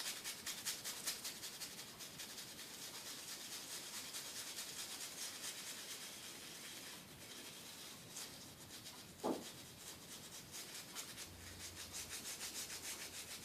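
Brush scrubbing a circuit board wet with isopropyl alcohol: a faint, fast, scratchy rubbing of many short strokes, with one brief falling squeak about nine seconds in.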